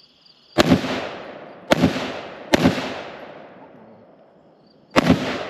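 Four single rifle shots from an AR-15-style rifle in 5.56/.223. The first three come about a second apart and the fourth follows after a pause of roughly two and a half seconds. Each crack rings out in a long echo that dies away over a second or more.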